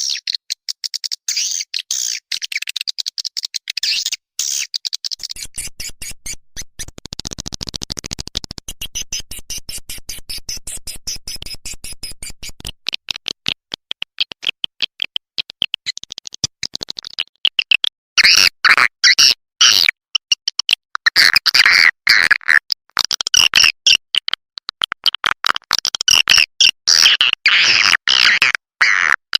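Swiftlet lure call recording: a fast, unbroken stream of high chirps, twitters and clicks played to draw swiftlets into a nest house. A buzzier, lower pulsing runs through the first half, and the twittering grows louder and denser about two-thirds of the way in.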